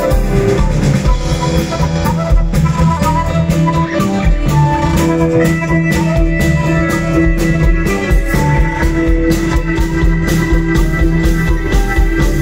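Live rock band playing, with a flute carrying the melody over electric guitar, bass, keyboards and a driving drum beat; about halfway through a high note is held for several seconds.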